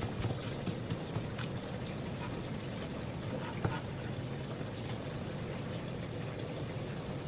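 Water running steadily, with a few faint clicks.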